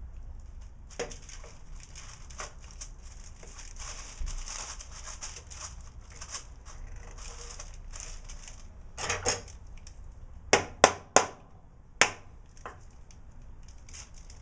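Glue being brushed onto wood in a run of short scratchy strokes, then several sharp knocks about two-thirds of the way in as a mallet taps the glued pieces together.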